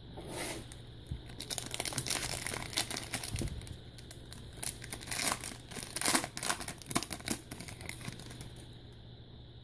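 Crimped foil wrapper of a baseball card pack crinkling and tearing as it is ripped open by hand: a dense run of sharp crackles that thins out near the end.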